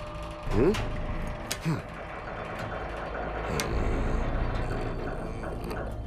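Cartoon shower plumbing creaking and knocking over a steady low rumble. There are two short rising squeaks in the first two seconds and a few sharp knocks.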